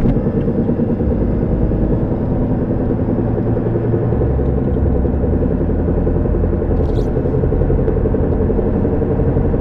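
Car driving with a steady, loud rumbling drone of road and running noise. The drone is the noise the owner traces to the driver-side front tire or drivetrain: it gets louder with speed and does not change with braking or turning.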